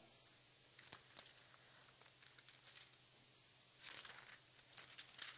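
Paper pages of a Bible being turned and rustled, with two short clicks about a second in and two spells of crinkling near the end.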